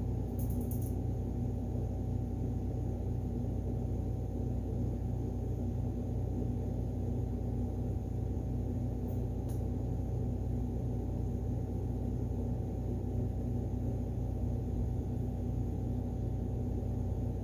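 Steady machine hum with a constant low drone and a faint held tone above it, unchanging throughout. Two brief faint ticks, about half a second in and about nine and a half seconds in.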